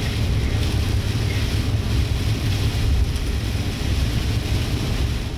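Steady low rumble and hiss of a vehicle driving in rain, heard from inside the cab, with rain on the windshield.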